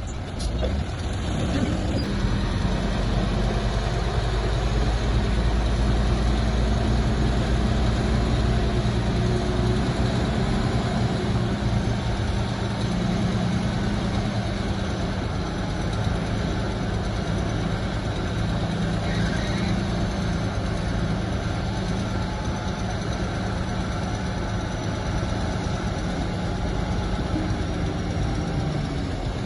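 Heavy diesel engine of earthmoving equipment running steadily, a little louder for several seconds near the start before settling.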